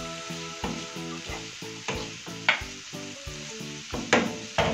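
Julienned vegetables sizzling as they are sautéed in a nonstick frying pan. A wooden spatula stirs them with several sharp scrapes against the pan, the loudest near the end, over soft background music.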